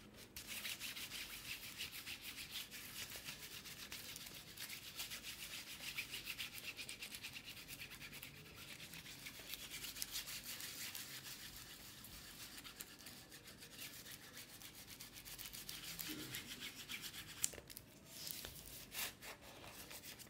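A Distress ink pad rubbed over crinkled tissue paper glued to a canvas: a quick, scratchy back-and-forth rubbing that pauses briefly near the end and then carries on.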